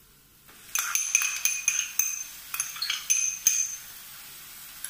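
A spoon clinking and scraping against a frying pan several times as ginger-garlic-green chilli paste is scooped into the hot spiced oil, followed by a faint steady sizzle.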